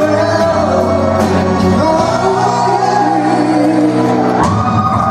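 A man sings a Burmese song into a microphone, holding long notes, backed by a live rock band with drums and electric guitar.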